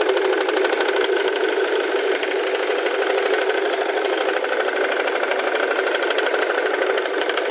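Ford Mondeo Mk3 2.0 TDCi four-cylinder diesel engine running steadily at idle, with a fast, even knocking clatter that the owner suspects may come from the crankshaft pulley.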